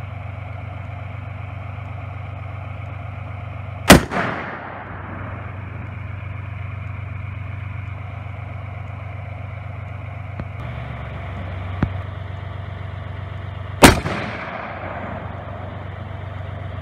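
Two shots from a Serbu RN-50 .50 BMG rifle fitted with a muzzle brake, about ten seconds apart, each a sharp crack followed by a short echo.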